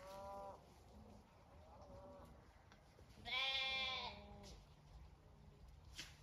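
Zwartbles lambs bleating: three calls, one trailing off at the start, a faint one about two seconds in, and a louder, quavering bleat a little over three seconds in lasting about a second.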